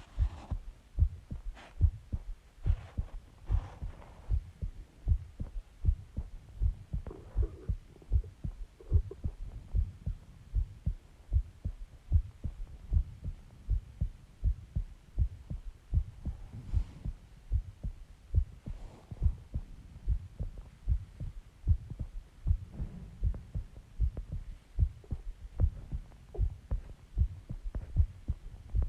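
A person's heartbeat: a steady rhythm of low thumps, with a few faint swishes now and then.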